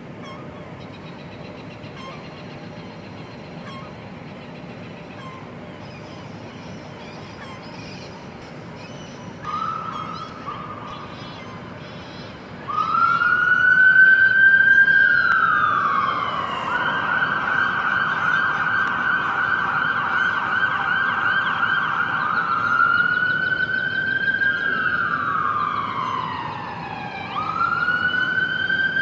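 Emergency vehicle siren, beginning about a third of the way in with a short blip, then a slow rising and falling wail that switches to a fast yelp for several seconds and back to the wail. Steady background noise underneath.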